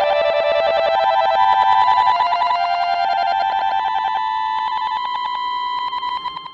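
Background music: a bright electronic melody of a few held notes, each with a fast warbling pulse, stepping between pitches and fading out near the end.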